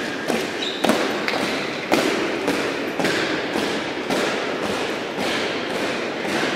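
Boots of a uniformed honour guard marching in step on a stone church floor, about two footfalls a second, each ringing on in the large nave's echo.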